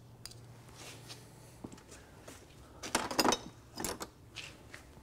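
Light clinks and knocks of a power steering reservoir filter and its coiled metal spring being set down, with a cluster of clatter about three seconds in and another knock just before four seconds.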